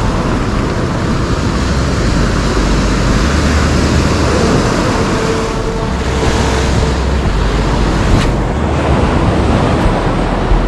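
Surf breaking and washing up a sandy beach, with strong wind buffeting the microphone in an uneven low rumble. There is a single sharp click about eight seconds in.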